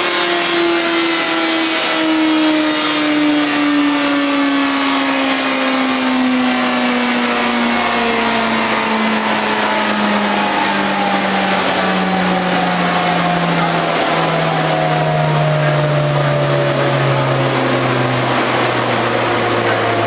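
2005 Suzuki Hayabusa's inline-four engine winding down from high revs on a dyno, its pitch falling slowly and steadily, with a rushing noise underneath.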